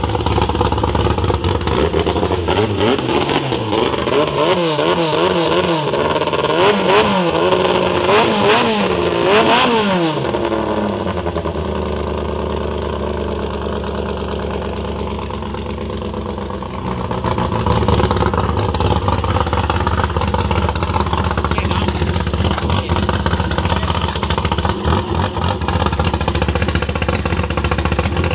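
Racing longtail boat engine revved up and down in quick repeated blips for several seconds, then running on at a steadier pitch.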